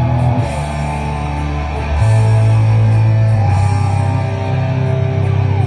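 Rock band playing live through a PA: amplified electric guitar over held bass notes that change every second or two.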